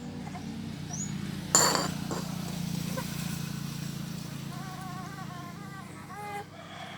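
A single sharp clink about a second and a half in, over a steady low hum. About four and a half seconds in comes a high, wavering infant whimper lasting a couple of seconds.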